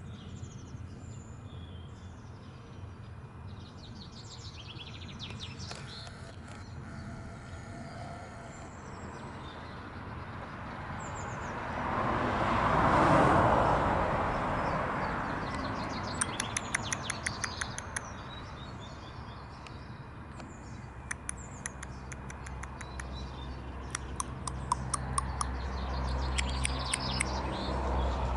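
Common blackbird calling in several quick rattling runs of clicky notes, gobble-like enough to be likened to a turkey, with fainter high chirps before them. A rushing noise swells and fades about halfway through, louder than the calls.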